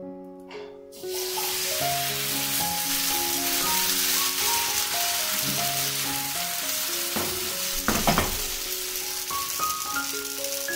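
Thin rice batter for neer dosa poured onto a hot dosa pan (tawa), sizzling loudly from about a second in and sizzling on steadily. A brief knock comes about eight seconds in. Background music with a light tune of plucked or struck notes runs underneath.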